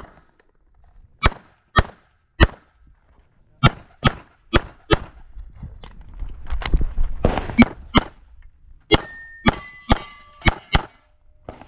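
A CZ 75 SP-01 pistol firing a string of about fifteen shots, mostly in quick pairs, with a short pause in the middle. Near the end a steel target rings after being hit.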